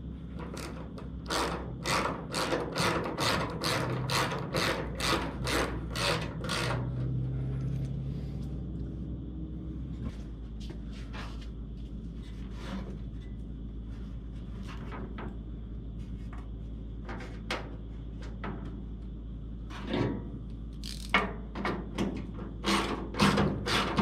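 Hand ratchet clicking as fender bolts are tightened: a run of quick, even clicks, about three a second, over the first several seconds, then scattered single clicks and a few quicker runs near the end.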